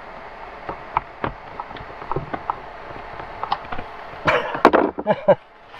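Small clicks and taps of a screwdriver and cables being worked at wiring terminals, with a louder burst of clattering and knocking about four seconds in.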